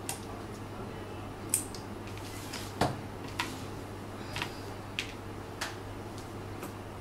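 Scattered light clicks and taps, about eight in all, from small objects being handled and set down on a work table, over a steady low hum.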